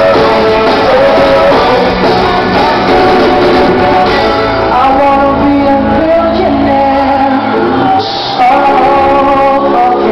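Live pop-rock concert music: a male singer belting a song over the band. It is recorded from the audience and dips briefly about eight seconds in.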